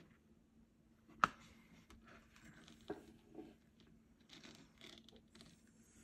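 Diamond painting work: a drill pen and resin drills on the canvas and a plastic drill tray. There is one sharp click about a second in, a softer click a little later, then faint rustling and scraping.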